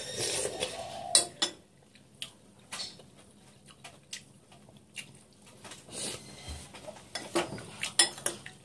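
Cutlery clinking and scraping against a bowl while eating, with irregular sharp clinks and short pauses between them.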